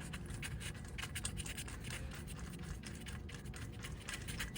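Rapid, irregular light clicking and scratching of hand-tool work as the idler pulley is bolted back onto the engine.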